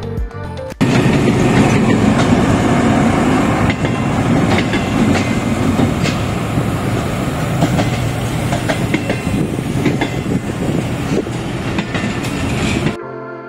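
Pakistan Railways diesel locomotive and passenger coaches passing close by: steady, loud running noise with repeated sharp wheel clicks on the rails. Music plays for the first moment, cuts off abruptly, and comes back near the end.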